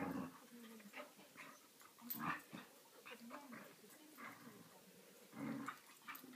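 Border collie and her eight-week-old pup play-fighting, vocalizing in short bursts, loudest at the start, about two seconds in and again near the end.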